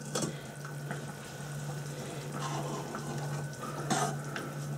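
Steady rush of water in the kitchen over a low constant hum, with a metal spoon clinking against a stainless steel bowl a fraction of a second in and again about four seconds in.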